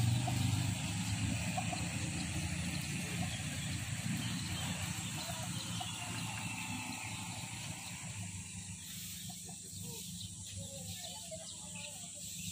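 A motorcycle engine running and fading away over several seconds as it recedes, its low drone growing steadily quieter. Small birds chirp faintly in the second half.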